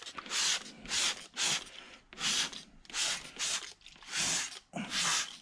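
Hand cleaning of a plastic PC case: a run of short hissing strokes, about two a second.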